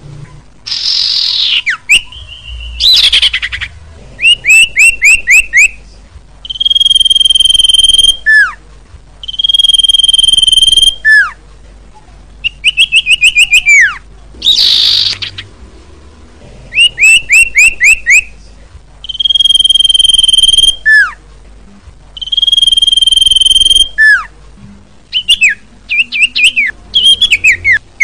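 Common iora (cipoh) song played as a bird lure: bursts of quick, short falling chip notes alternate with long level whistles that each end in a falling note. A few harsh downward-sweeping calls are mixed in, and the phrases repeat over and over.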